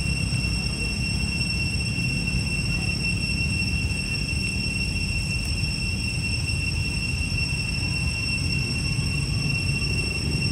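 Steady outdoor background noise: a low rumble under a constant high-pitched whine, with no calls or separate sounds standing out.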